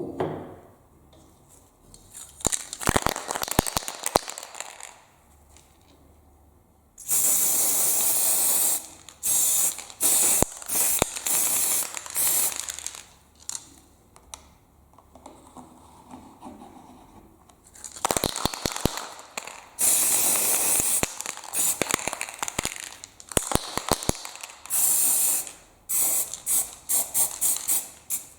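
Aerosol spray-paint can spraying in repeated bursts: a few long hisses of a second or two and many short puffs, with some quick clicking in between.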